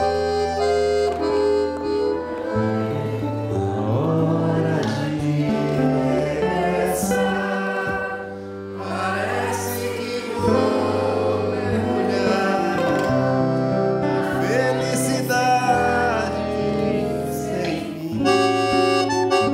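Live forró-style music: a Giulietti piano accordion (sanfona) leads with sustained chords and low bass notes, over a bandolim (Brazilian mandolin) and an acoustic guitar. The accordionist's male voice sings in places.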